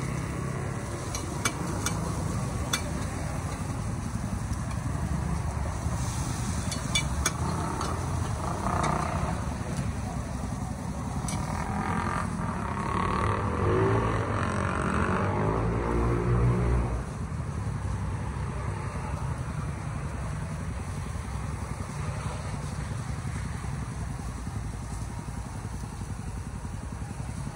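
Street-side cooking ambience: a steady low rumble with a few sharp metal clinks of a spatula early on, and a motor vehicle engine passing close by, its pitch rising and falling and loudest from about 12 seconds in, dropping away sharply about 17 seconds in.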